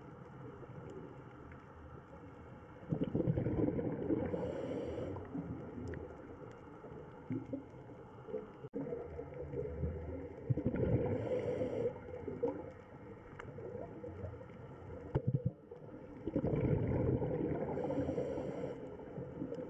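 Underwater ambience with a scuba diver's breathing: three slow swells of gurgling bubble noise, about every six to seven seconds, over a steady low rumble.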